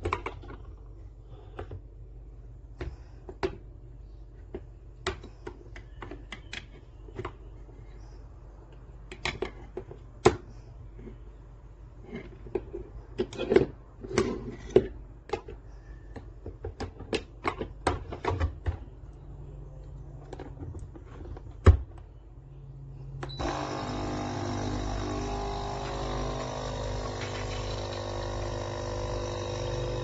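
Clicks and knocks of a HiBREW capsule coffee machine being handled and its button pressed. About two-thirds of the way through, the machine's pump starts suddenly with a steady buzzing hum as it brews coffee into the cup.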